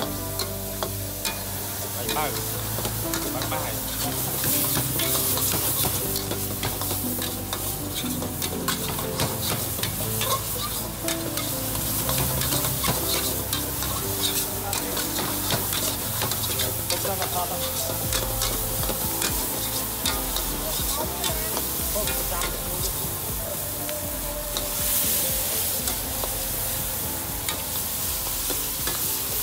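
Stir-frying in a metal wok: food sizzling in hot oil while a metal ladle stirs and scrapes against the wok, with many quick scraping knocks.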